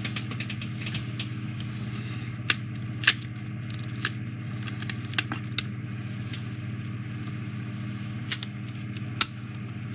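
Small parts of a CubicFun 3D puzzle being pushed out of their foam-board sheets and set down on the desk: scattered sharp clicks and snaps, the loudest about three seconds in and a few more near the end. A steady low hum runs underneath.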